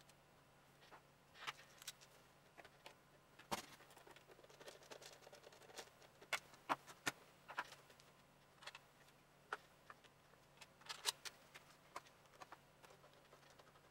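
Scattered sharp clicks and taps of hard plastic blaster parts and hand tools being handled as a Nerf Supermaxx 5000 is worked on with a screwdriver and pliers, over a faint steady hum. The loudest clicks come about three and a half seconds in and again around eleven seconds.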